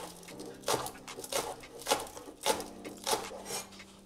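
Cleaver chopping spring onions on a wooden cutting board: a sharp knock with each stroke, about six chops spaced roughly half a second apart. A faint steady hum runs underneath.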